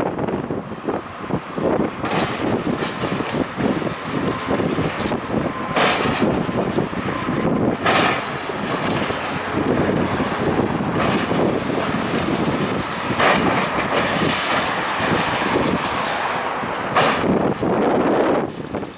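Building demolition: masonry and debris crashing down and clattering in a dense run of knocks and crunches, with heavier falls at several points.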